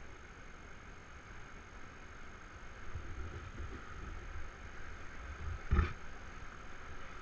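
Steady rush of river water over a riffle, heard from a raft, with irregular low rumbling on the microphone and a single sharp thump a little before the end.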